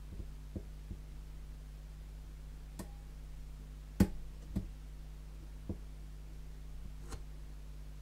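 Small sharp clicks and taps from a hook pick working the pins of a Medeco biaxial cylinder under a pry-bar tensioner. They come irregularly, roughly one a second, with the loudest about four seconds in, over a steady low hum.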